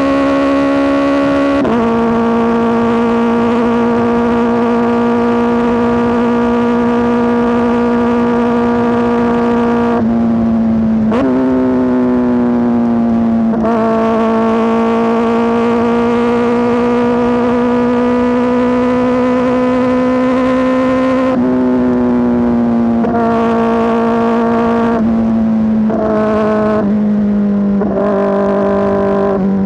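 Kawasaki ZX-4RR's 399 cc inline-four running loud through an SC-Project S1 exhaust, holding a steady high-pitched note. Its pitch drops abruptly several times, about 2, 11 and 14 seconds in, then in quick steps near the end.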